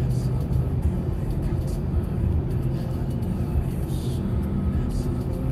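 Steady low road and engine rumble inside a moving car's cabin, with music playing over it.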